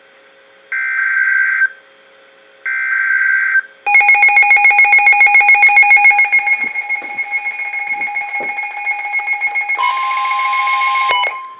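Emergency Alert System broadcast signal: two one-second bursts of SAME digital header screech with a second's pause between, then a loud electronic alert tone that pulses rapidly at first and then holds steadier, with a second tone joining near the end before both cut off together.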